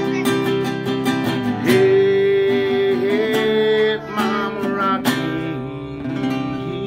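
Acoustic guitar strummed in a quick rhythm, with a long sung note held over it through the middle. The strumming thins out to a few ringing chords near the end.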